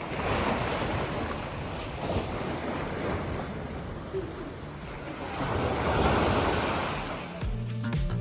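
Sea waves washing onto the shore, swelling up twice and falling back. Background music comes in near the end.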